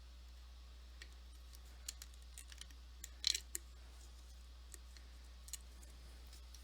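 Faint scattered clicks of someone sipping water, with the loudest cluster a little over three seconds in, over a steady low hum.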